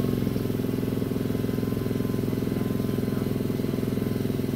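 Gasoline walk-behind lawn mower engine running steadily with a fast, even beat. It has just caught after starting.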